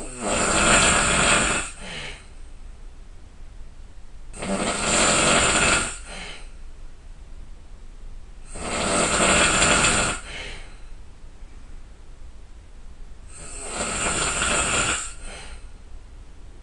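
A person snoring loudly: four long snores, each lasting over a second, coming about every four to four and a half seconds, each with a short softer tail.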